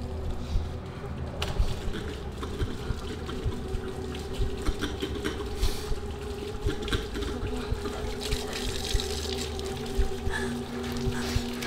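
Wood fire crackling in a fireplace, with irregular small pops and snaps, over a low, steady droning tone.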